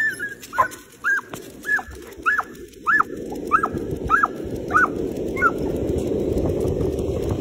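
Dog yelping excitedly in quick high-pitched yips, about two a second, fading out after about five seconds. From about three seconds in, a rising rush of wind noise and footsteps takes over as the dog sets off running.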